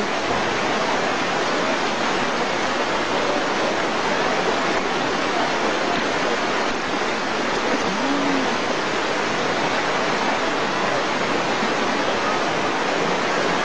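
Floodwater in a swollen river rushing steadily, a continuous even noise of fast-flowing water.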